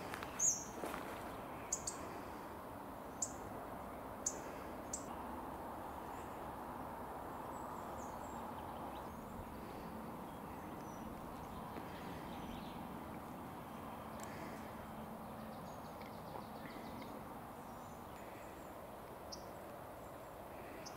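Small birds giving short, high chirps, several close together in the first few seconds and a few scattered ones later, over a steady low rushing background.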